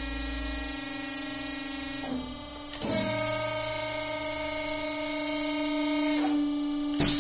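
Yilmaz KP120 corner-crimping press running its electric-motor hydraulic pump: a steady hum with a whine, which gets louder about three seconds in. A short hiss comes near the end.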